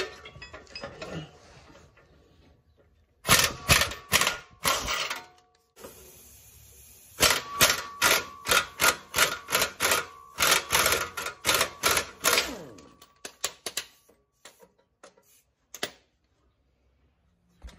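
A socket ratchet clicking on exhaust downpipe nuts. One short burst comes about three seconds in, then a longer run of quick clicks lasting about five seconds, then a few stray clicks, with pauses between.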